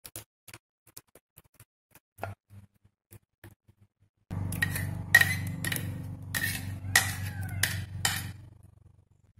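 Spoon knocking and scraping against the mixer-grinder jar and plastic mixing bowl while thick ground green masala paste is emptied out. A few faint clicks, then from about four seconds in a run of about seven sharp, ringing knocks over a low steady hum that stops shortly before the end.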